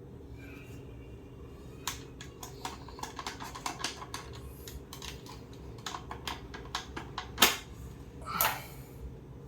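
Parts of a disassembled Philips steam iron clicking and clattering as they are handled: a run of quick irregular clicks, a sharp knock about three-quarters of the way through, then a short scrape.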